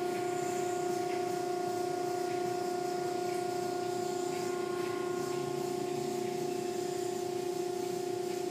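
Automatic car wash machinery running with a steady, even-pitched hum, over a low hiss of water and foam washing over the car.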